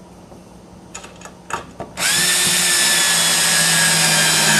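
A few light clicks, then about two seconds in a cordless drill/driver starts and runs at a steady whine, driving a 5/8-inch screw, until it stops abruptly.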